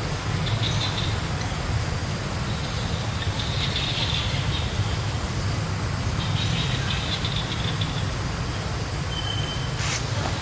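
Steady low rumbling background noise with a faint high buzzing that comes and goes.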